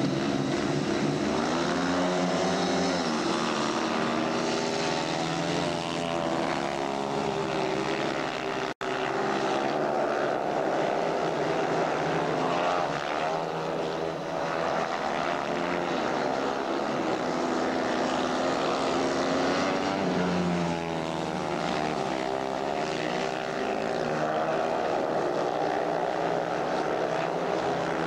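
Speedway motorcycles racing, their single-cylinder methanol engines at high revs, the pitch rising and falling as the bikes accelerate and back off around the track. The sound cuts out for an instant about nine seconds in.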